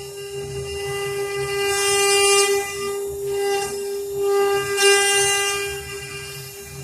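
KDK-M1325 CNC router spindle running with a steady high-pitched whine, over a low machine rumble, with the high hiss swelling about two seconds in and again near five seconds.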